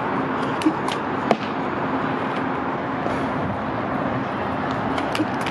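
Steady noise of heavy traffic, with a few sharp taps about a second in and again near the end.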